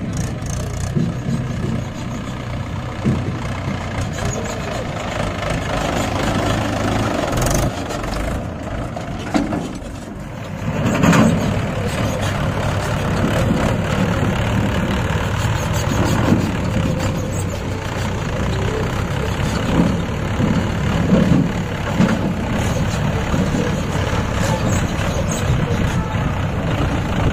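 Mahindra 575 DI tractor's four-cylinder diesel engine running, with louder surges of engine speed in the second half.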